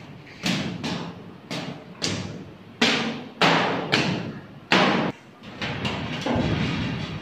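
Sandpaper rubbed in quick strokes over dried putty on a mild-steel wardrobe's panel, the sheet metal sounding with each stroke. The strokes come irregularly, each starting sharply and fading.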